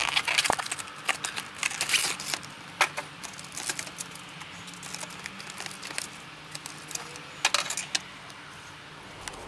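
A cardboard model-railway box being opened and its clear plastic tray slid out and handled: a run of clicks, scrapes and rustles of card and plastic, busiest in the first few seconds, with another short flurry near the end.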